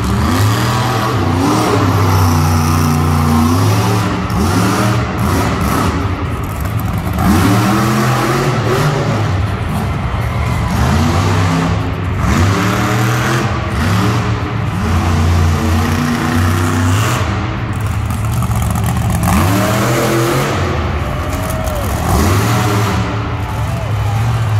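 Monster truck engine revving hard again and again as the truck drives the arena floor. The pitch climbs and drops back every second or two.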